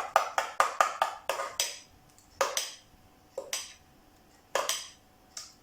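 Spoon stirring thick tomato sauce in a pan and knocking against its sides: a fast run of knocks, about five a second, for the first couple of seconds, then a few slower pairs of knocks.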